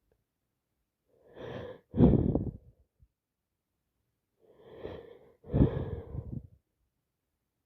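A woman sneezing twice, about three and a half seconds apart, each sneeze led by a short audible in-breath. The sneezing comes from a cold that has turned into sinusitis.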